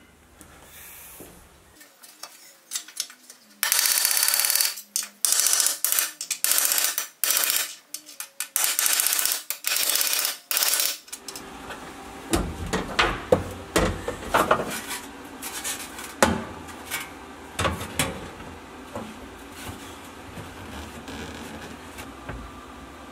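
Metalwork on a steel floor pan repair panel. A run of loud rasping strokes on the metal starts a few seconds in and stops about halfway. After that come scattered knocks and clanks of sheet steel as the panel is handled and set into the floor.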